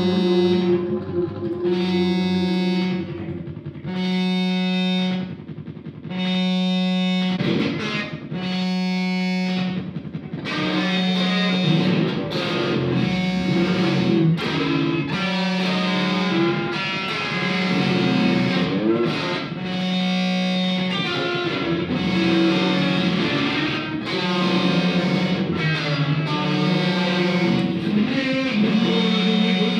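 Distorted Telecaster-style electric guitar played through effects pedals: a held low note repeating about every second and a half, with gaps between at first, thickening into a denser layered riff about ten seconds in.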